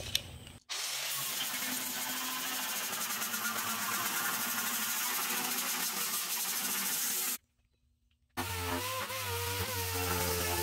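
Handheld grinder with a sanding disc taking old primer off a steel dash panel: a steady rough abrasive noise, then, after a second-long break about seven seconds in, the tool's motor whine with a wavering pitch.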